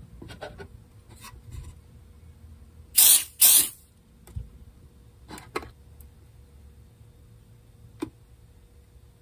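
Two short, loud hisses about half a second apart, roughly three seconds in, followed by a few light taps of fingers on the mandolin's wooden top.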